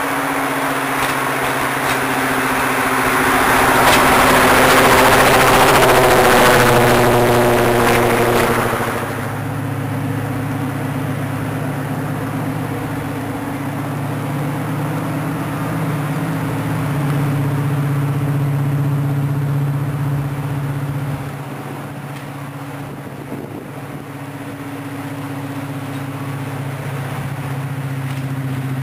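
Class 55 Deltic diesel locomotive's two Napier Deltic two-stroke engines running as it draws slowly into the platform. Loud at first, the engine note drops suddenly about nine seconds in and settles to a steady, lower drone.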